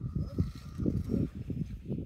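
Wind buffeting the microphone: irregular low rumbling gusts that rise and fall several times.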